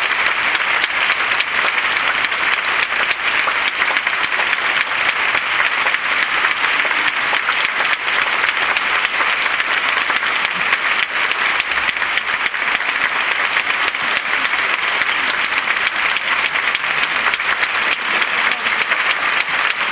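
Audience applauding steadily, a dense clapping that runs without a break.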